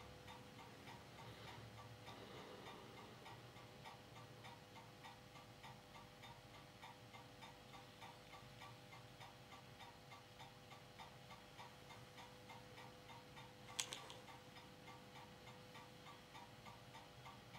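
Quiet steady hum with faint, evenly spaced ticking, from an Ania 5 filmstrip projector running. One sharp click about fourteen seconds in, as the filmstrip is advanced to the next frame.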